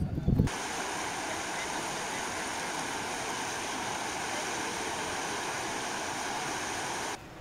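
Steady rushing noise of flowing water, cut in abruptly about half a second in and cut off abruptly near the end.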